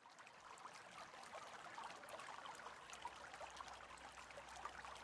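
Faint babbling of a stream, fading in from silence.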